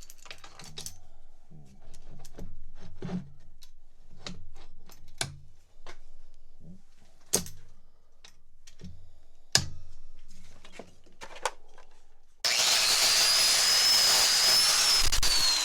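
A series of knocks and clanks as metal vise parts are handled and set down. About twelve seconds in, a grinder fitted with a wire wheel starts abruptly and runs loud, stripping crud off the old vise metal, its whine shifting in pitch as it is pressed onto the work.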